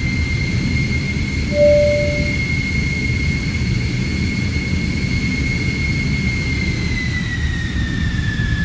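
Jet airliner engine sound: a low rumble under a steady high whine, whose pitch drops slightly near the end, with a short beep about two seconds in.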